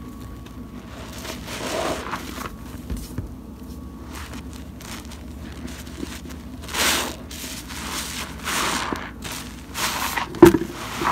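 Hands squeezing and wringing soap-soaked sponges in thick suds: wet squelching and foam crackling in several irregular surges. A sharp click near the end is the loudest sound.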